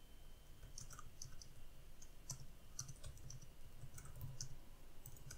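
Faint, irregular clicking of computer keyboard keys as a short sentence is typed.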